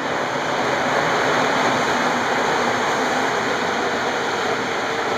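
Steady rushing noise of city traffic, swelling slightly at first and then holding even.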